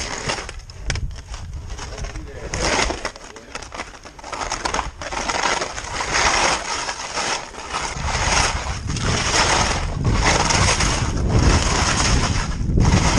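Skis scraping across hard, icy snow in a run of quick turns, one scrape about every second and growing louder. Wind rumbles on the microphone from about two-thirds through.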